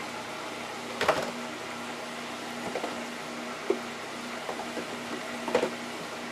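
A few short knocks and clatters of utensils and dishes handled at a kitchen counter, about three clear ones, over a steady low appliance hum.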